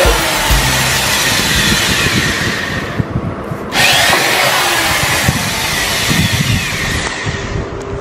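Green corded electric hand drill running as it bores screw holes into a white plastic switch board. The high whine drops out for under a second about three seconds in, then picks up again.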